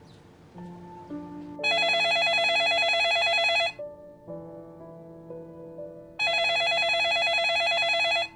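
Telephone ringing twice with a loud electronic warbling trill, each ring about two seconds long, over soft background music.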